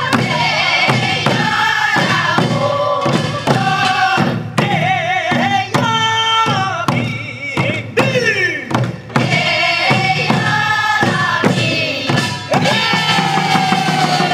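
Korean traditional farming song for transplanting rice, sung by several voices with wavering held notes over regular beats of a buk barrel drum. It ends on a long held note that slowly falls.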